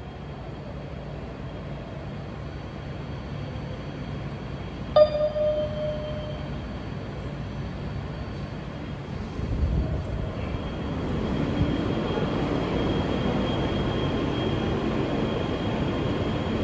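New York City subway train, heard from aboard: a low rumble, a sharp clank with a brief ringing tone about five seconds in, then running noise that grows louder from about halfway as the train gets under way.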